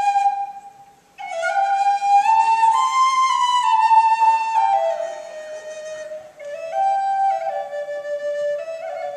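Native American flute playing a slow solo melody. A phrase ends about a second in; after a breath the tune climbs, then steps down note by note, and a new phrase starts near the end.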